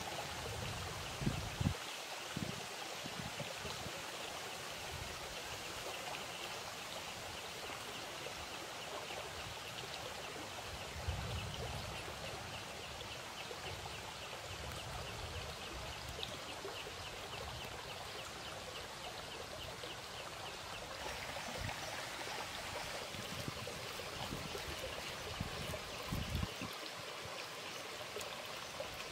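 Shallow stream flowing steadily over stones, a continuous rushing babble, with a few brief low thumps.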